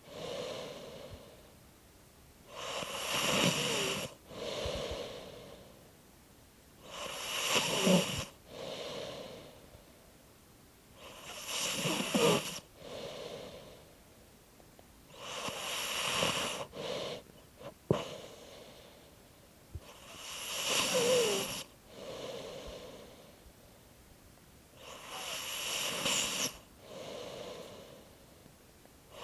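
Slow, rhythmic snoring: six drawn-out snores about four to five seconds apart, with quiet squeaks and whistles in the breaths. There is a brief click a little past halfway.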